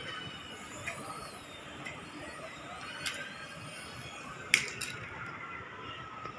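Toy remote-control helicopter's small electric rotor motors whining steadily as it flies low and comes down onto the tiles. A few sharp clicks cut in, the loudest about four and a half seconds in.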